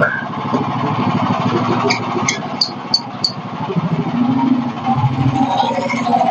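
Small gasoline engine running steadily, with a few short high-pitched squeaks about two to three seconds in.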